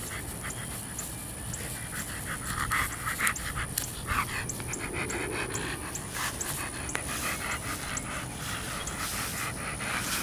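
Blue American Bully dog panting, a steady run of quick breaths with its tongue out.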